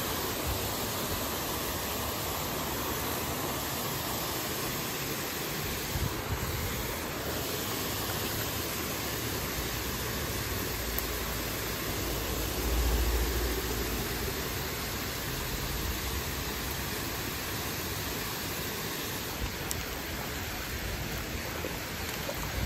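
Steady rushing of water pouring through a spillway, a constant even hiss. A brief low rumble stands out about halfway through.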